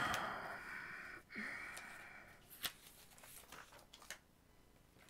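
Faint handling noise at a desk: two rustling rushes that each fade over about a second, then several light clicks and taps.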